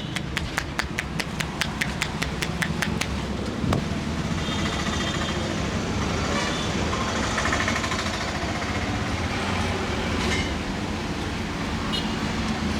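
Rapid rhythmic hand slaps of a massage, about four a second, stopping a few seconds in, over steady street traffic noise with car horns.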